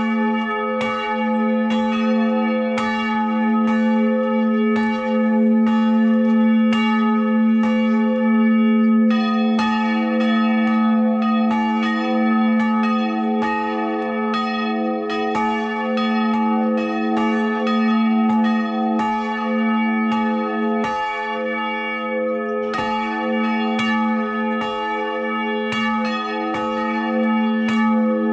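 Two church bells swung by hand and ringing together at full peal, heard from inside the belfry: the 700 kg St. Barbara bell cast by the Schrötters in 1614, tuned to a1, and the 2016 St. Francis bell, tuned to e2. Their clappers strike in a steady, overlapping run of strokes over a loud, continuous hum.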